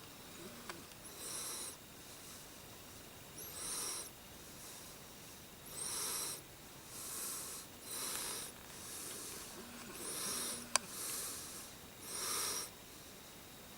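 A person breathing heavily close to the microphone: about nine hissing breaths in and out, one every second or two, with a single sharp click late on.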